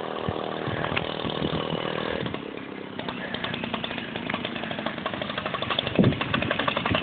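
Single-cylinder 125cc lawn mower engine on a homemade minibike running. It holds a steady note at first, then, from about three seconds in, turns into a fast, even train of firing pulses.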